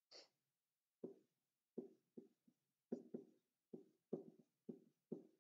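Faint taps and light scrapes of a stylus on a tablet screen during handwriting: about a dozen short knocks at uneven spacing, after a brief hiss at the start.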